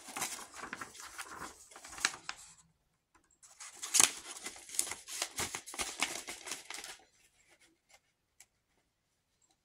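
Plastic Blu-ray/DVD case and its paper cover sleeve being handled: rustling and scraping, a sharp click about four seconds in as the case is open, then more rustling and a few light clicks near the end.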